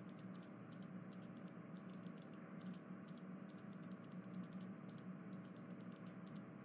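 Faint steady hum and hiss with light, irregular clicking running through it.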